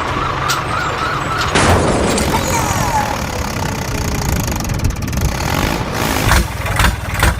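A construction-vehicle engine running, with a wavering high tone at the start and a sudden loud noise about a second and a half in; near the end the engine sound comes in quick regular pulses, about four a second.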